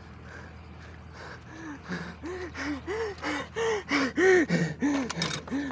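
Dog whining in short rising-and-falling cries, about three a second, starting after a second or so and getting louder as it paws at the vehicle door to be let in.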